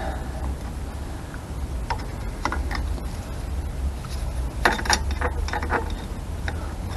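Metal clicks and clinks of brake shoes, return springs and a screwdriver being handled on a drum-brake backplate during shoe fitting, with a brief cluster of sharp clinks about five seconds in.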